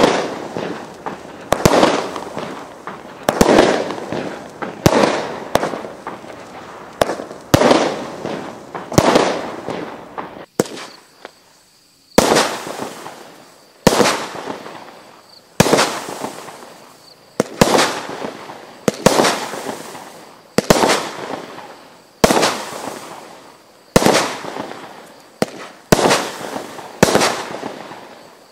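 WATT 8-Ball multi-shot fireworks cake firing shot after shot, about one every one and a half seconds. Each shot is a sharp bang with a noisy tail that fades over about a second. There is a brief pause about two-fifths of the way through before the shots resume.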